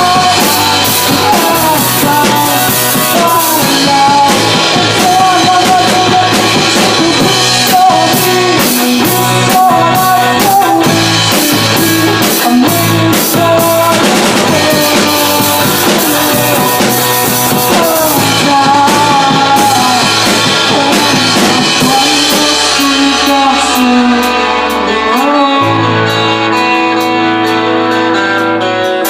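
Rock music with a drum kit, guitar and singing. About three-quarters of the way through, the drumming thins out and long held notes carry on.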